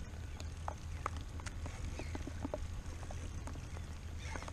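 Water lapping and slapping against a kayak hull, heard as scattered, irregular small knocks and splashes over a steady low wind rumble on the microphone.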